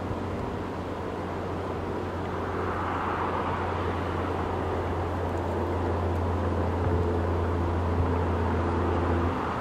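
Diesel locomotives of an approaching train: a steady low engine rumble under a noisy wash that slowly grows louder.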